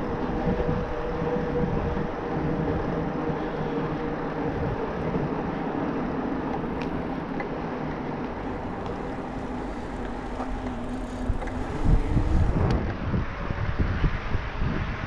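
Bosch Performance Line e-bike mid-drive motor and tyres humming steadily while riding, with wind rumbling on the microphone, heaviest about twelve seconds in.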